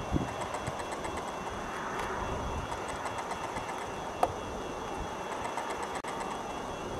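Distant double-stack container freight train rolling along the line, a steady rumble of wheels and rail noise. A sharp click comes about four seconds in.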